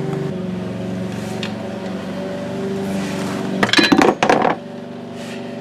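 Screwdriver prying at an old gearbox oil seal, giving a cluster of metallic clinks and scrapes a little past halfway, over a steady low hum.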